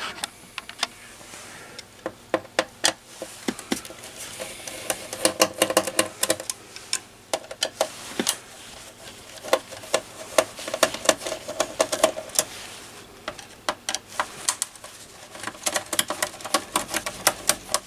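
Hand screwdriver backing small screws out of a board in a metal radio chassis: irregular runs of light metallic clicks and ticks as the blade seats and turns.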